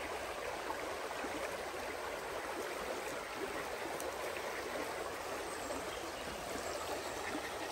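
Shallow, rocky river flowing steadily over stones and riffles.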